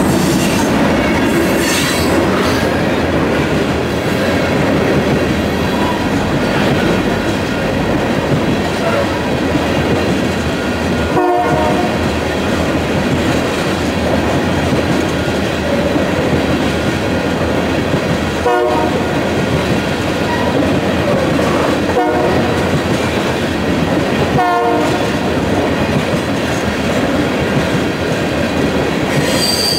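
Freight train rolling past: the steady rumble and clatter of railroad tank cars' wheels on the rails.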